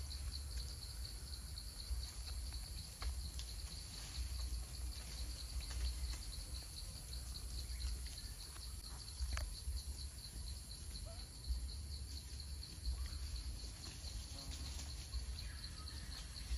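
Insects trilling steadily in the forest, a high, even buzz that never stops, over a low rumble and a few faint clicks.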